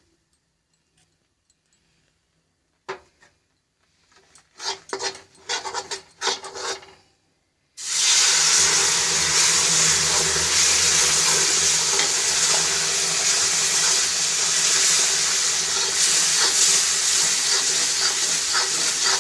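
A few stirring scrapes in a kadhai of gram flour roasted in ghee; then, about eight seconds in, hot water hits the hot ghee and flour and sets off a sudden, loud, steady sizzling.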